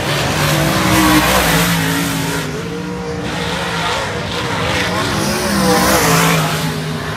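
Dirt modified race car engines running hard on the track, their pitch rising and falling. The sound swells as cars pass, loudest about a second in and again near six seconds.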